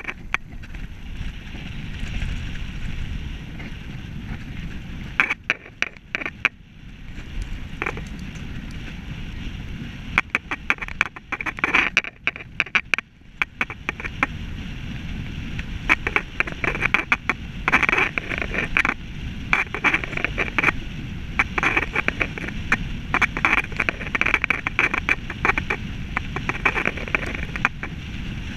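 Road bicycle being ridden at speed on a paved path: a steady low rumble of tyres and wind, with frequent sharp rattling clicks from the bike that come thicker in the second half.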